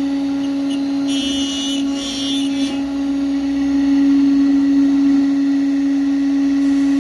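CNC cutting machine running with a steady, even hum. About a second in, a higher-pitched cutting sound joins for a second and a half or so.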